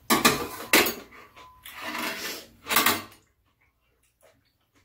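Close, loud eating noises over bowls of soup and utensils working in the bowls: four or so rough bursts in the first three seconds, then it goes quiet.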